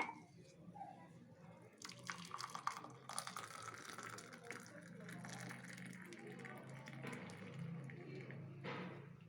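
Hot herbal kashayam being poured through a strainer into a cup, a faint trickle and splash of liquid starting about two seconds in and going on until near the end.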